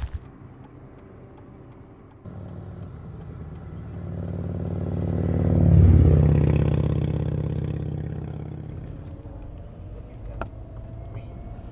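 A motor vehicle passing by. Its engine sound comes in about two seconds in, grows to a peak about six seconds in, then fades away over the next few seconds.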